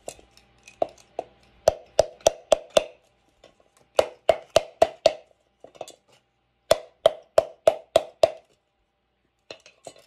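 Tin can being struck in three quick runs of five or six sharp taps, each tap ringing briefly like thin metal: knocking a dent out of the can.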